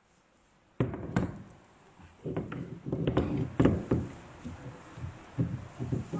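Champagne pistol being handled while its stopper's adjusting screw is turned: a string of irregular knocks and clicks, starting about a second in.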